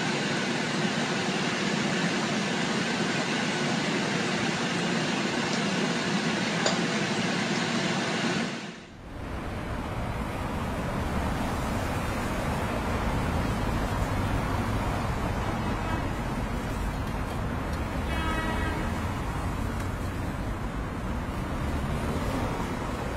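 Steady road noise heard from inside a car, with a faint hum. After a sudden cut about nine seconds in, it changes to steady street traffic noise with a low rumble, and a brief high-pitched tone sounds partway through.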